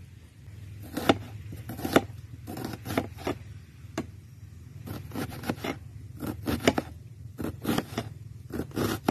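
A cleaver slicing and chopping an onion on a plate: irregular sharp knife strokes, some single and some in quick clusters of two or three, each blade hitting the plate.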